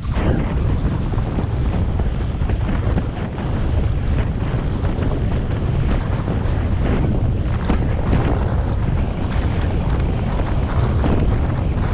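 Wind buffeting the microphone of a moving rider's camera, a steady rumble with irregular gusty flutter.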